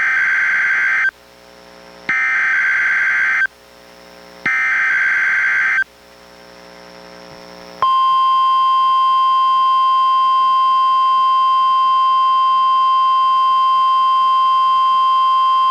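NOAA Weather Radio alert signal played by a Reecom R-1630 weather radio: three roughly one-second bursts of buzzy SAME header data with short pauses between them. About eight seconds in, the steady 1050 Hz warning alarm tone starts and holds, as part of a Required Weekly Test.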